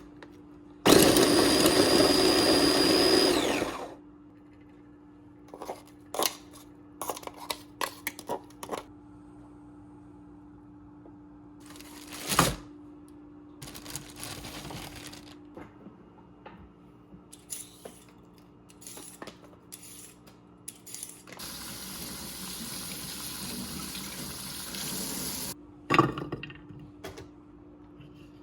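A small electric food processor runs for about three seconds with a high whine, then winds down as it is switched off. Scattered clicks and knocks follow, with one sharper knock, and later a softer steady rushing noise for a few seconds.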